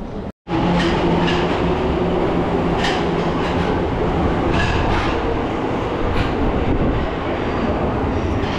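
Tokyo Metro Marunouchi Line subway train pulling out of an underground platform: a loud steady rumble with a low motor hum over the first few seconds and scattered clacks of wheels over the rail joints, easing slightly as it leaves.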